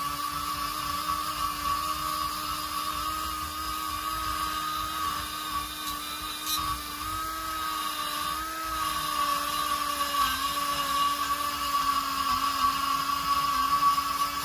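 A high-speed porting grinder whines steadily as its burr cuts into the exhaust port of a Mazda rotary-engine rotor housing. The pitch dips and wavers slightly as the burr bites into the metal. This is the rough cut, taking the port's bottom edge down to the template line.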